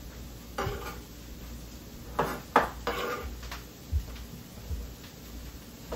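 Kitchen dishes and utensils clinking and knocking: several sharp clatters in the first half, then a couple of dull thumps, over a low steady hum.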